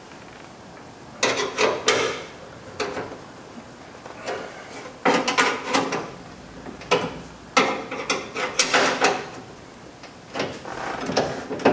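Metal clicking and rattling of a wrench working the window track bolts inside a steel car door, in short, irregular bursts with pauses between.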